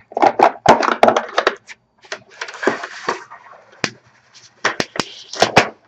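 Hands working a plastic screen-protector applicator tray: a quick string of plastic clicks and knocks as its hinged flaps and the protector film are handled, with about a second of hissy rustling of plastic film a couple of seconds in.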